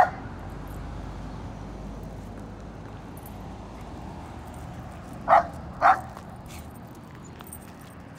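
A dog barking: one bark right at the start, then two quick barks about half a second apart around five seconds in.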